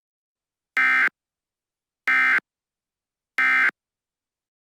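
Emergency Alert System end-of-message (EOM) SAME data bursts: three short bursts of warbling digital data tones, about a second and a quarter apart, signalling the end of the alert message.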